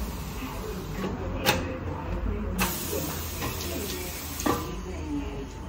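Three sharp knocks as an alloy wheel is handled on a tyre-changing machine's turntable, the first the loudest, over a steady hiss and low hum of workshop noise.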